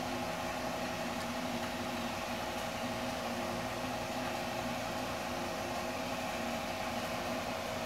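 Steady machine hum, with several constant tones over an even hiss, from a running fan or appliance motor.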